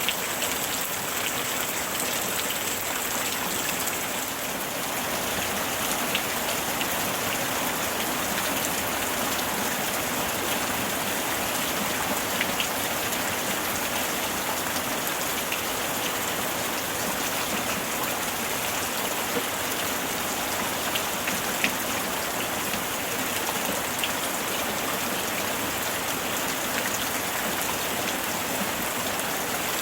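Steady summer rain falling on surfaces, an even hiss with scattered individual drops ticking throughout.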